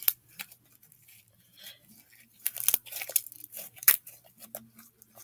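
Fluffy glue-and-shaving-cream slime being worked in a bowl, giving scattered sticky clicks and crackles with a few sharper snaps.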